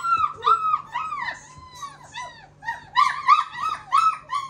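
Long-haired German Shepherd puppy whimpering: a quick series of short, high-pitched whines, each rising and falling, about three a second.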